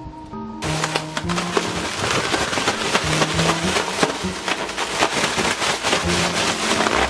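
Plastic bag crinkling and crackling as it is shaken hard, with raw shrimp and potato starch tumbling inside, starting about half a second in, over background music.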